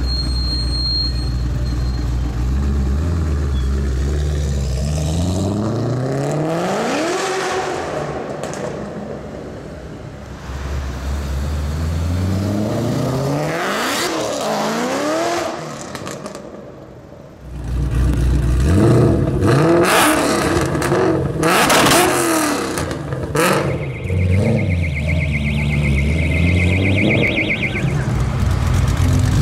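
Car engines accelerating hard through the gears, with the engine note rising several times; it is loudest in the second half, where sharp revs come one after another. A pulsing high beep sounds for a few seconds near the end.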